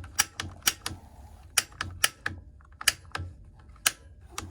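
Gas water heater's piezo spark igniter being pressed over and over, giving about a dozen sharp, irregular snaps while the pilot is being lit.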